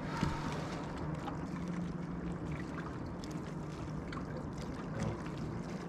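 Water sloshing and lapping around a small fishing boat over a steady low hum, with a few faint ticks.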